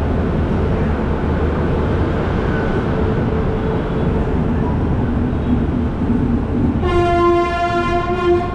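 Steady rumble around a train standing at a station platform, then a locomotive horn sounds one steady blast about seven seconds in, lasting about a second and a half.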